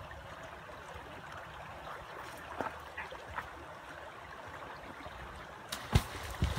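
Shallow river flowing steadily, then a loud splash about six seconds in as something heavy is thrown into the water.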